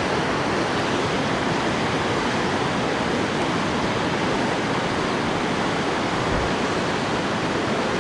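Rushing water from a river and waterfall below, a steady, unbroken noise.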